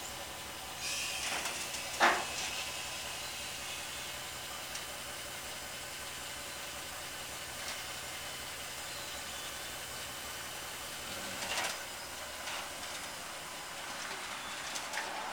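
Engine idling on a bagged 1946 Ford pickup while its air-ride suspension airs up from laid out on the ground: a hiss of air starts about a second in, with a sharp clunk about two seconds in, and another short hiss comes near the end.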